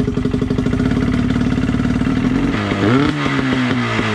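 35 hp two-cylinder two-stroke outboard motor running steadily just after being pull-started. About two and a half seconds in, its speed dips and swings back up before settling. It runs pretty good.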